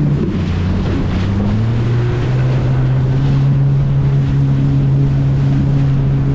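Jet ski engine running at speed. Its pitch climbs over the first couple of seconds, then holds steady, with wind buffeting the microphone and spray rushing past the hull.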